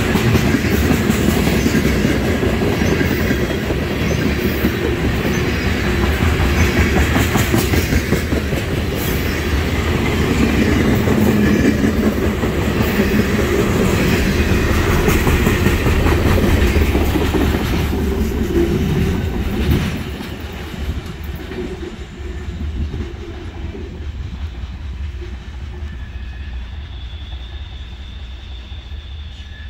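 Freight train of oil tank cars rolling past close by: a steady rumble with wheels clicking over the rail joints. About twenty seconds in, the last car goes by, the sound drops off, and the train fades away into the distance.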